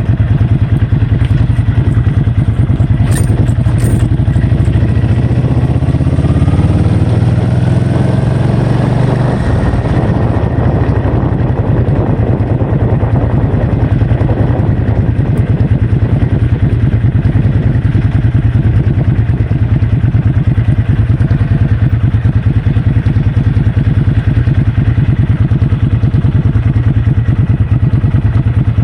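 Heavy wind buffeting on the microphone over a running vehicle engine, whose pitch rises as it speeds up several seconds in.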